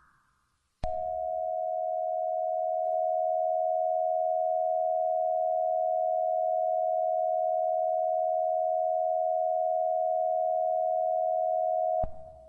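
A steady electronic alert tone at one unchanging mid pitch, the attention signal of a mock emergency alert broadcast. It starts about a second in, holds for about eleven seconds, and cuts off near the end.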